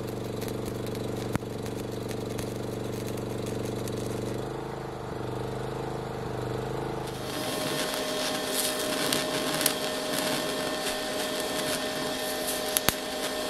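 Electric arc welding on steel: for the first seven seconds a steady electrical hum with faint crackle. Then a brighter hissing arc with a steady whine from a TIG torch welding a bracket.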